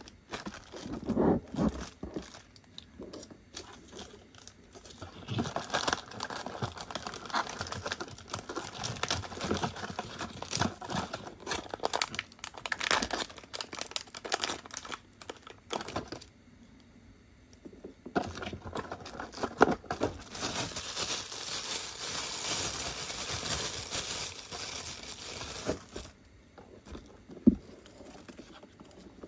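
Plastic bag and foil packaging crinkling and rustling in long bouts, with tearing and many small clicks from handling, and a single sharp tap near the end.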